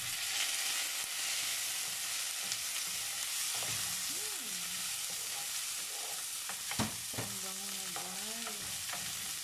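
Asparagus sizzling as it fries in butter with browned garlic and onions in a pan, being stirred, with a sharp knock of a utensil against the pan about seven seconds in.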